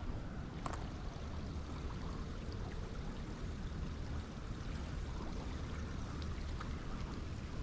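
Shallow river water running steadily, a continuous rushing noise, with a faint tick or two.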